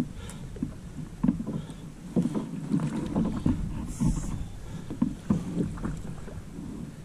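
Water sloshing and knocking irregularly against the plastic hull of a Hobie fishing kayak, with a brief splash about four seconds in.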